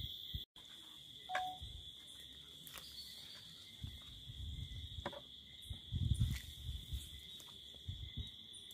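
Steady high-pitched chirring of crickets or similar insects, with a few low thumps and rumbles about halfway through.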